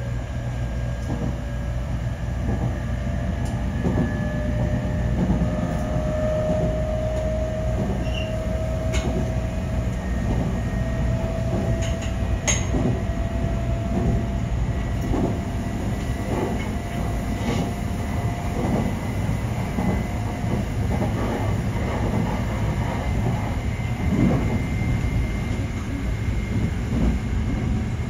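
Nankai 8300 series electric train running, heard from inside the front of the train: a steady low rumble with a motor whine that rises slowly in pitch as it gathers speed. In the second half the wheels clack regularly over rail joints.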